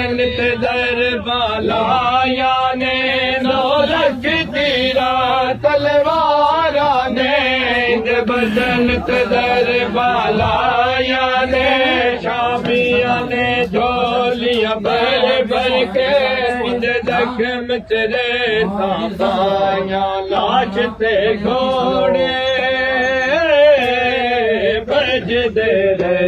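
A man chanting a slow, melodic religious recitation, holding long notes that waver up and down, with no instruments.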